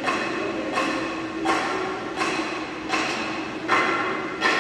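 Metal being struck at a steady pace, about one blow every three-quarters of a second. Each blow rings on and fades before the next.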